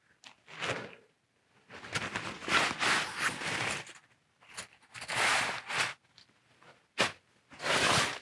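Berghaus Cheviot 2 tent fabric rustling and crumpling in several irregular bursts as a person crawls into the small dome tent.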